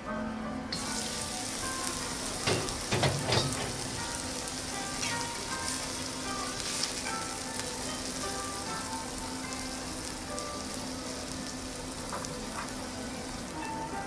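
Wagyu steak sizzling on a teppanyaki griddle. The hiss starts suddenly about a second in and holds steady, with a few knocks around three seconds in.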